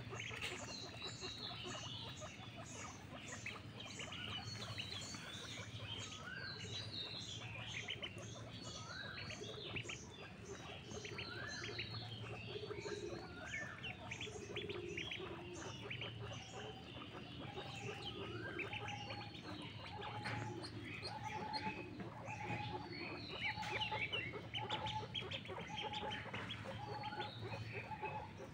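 A group of ducklings peeping constantly with many short, high calls. From about halfway through, a short lower note repeats about once a second.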